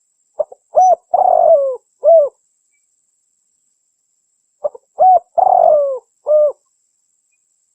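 Spotted dove (terkukur) cooing: two calls about four seconds apart. Each call is a couple of short coos, a longer rolling coo that falls in pitch, and a closing coo.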